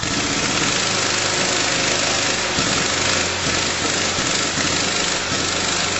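Impact wrench hammering steadily on the GY6 engine's variator fan nut to break it loose, starting suddenly.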